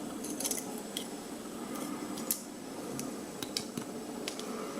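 Small metal clicks and taps, irregular and scattered, as the tiny brass pins and springs of a gutted rim lock cylinder are handled and set down.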